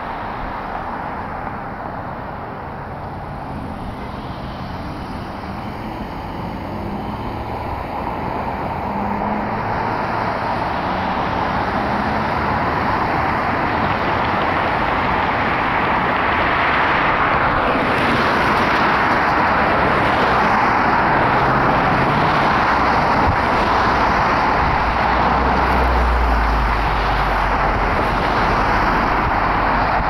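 Road traffic at a signalled intersection: a steady wash of car engine and tyre noise that grows louder about halfway through as the light turns green and cars pass, with a deep low rumble near the end.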